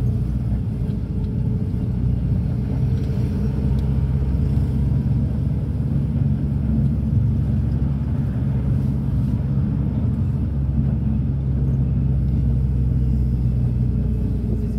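Cabin noise of a moving minibus: a steady low engine drone and road rumble heard from inside the vehicle.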